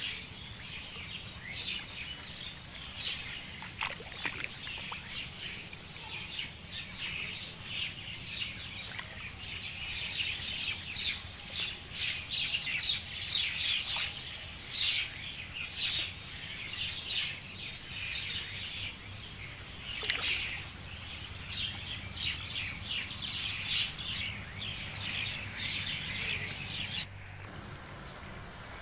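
Many small birds chirping in a dense, continuous chorus of short, high calls, busiest in the middle and thinning out near the end.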